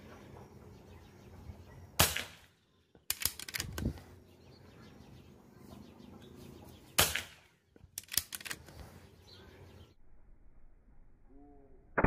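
PCP air rifle fired twice, about five seconds apart: each shot is a sharp crack, followed about a second later by a quick run of metallic clicks as the rifle is cocked and the next pellet loaded.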